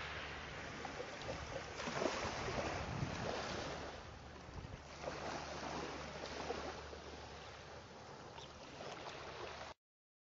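Beach ambience of waves washing ashore, with wind on the microphone, rising and falling in level; it cuts off abruptly near the end.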